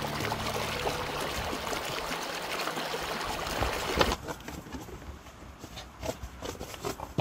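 River water rushing steadily as a full, even hiss. About four seconds in it cuts off suddenly with a sharp click, leaving a quieter background with scattered light clicks and knocks.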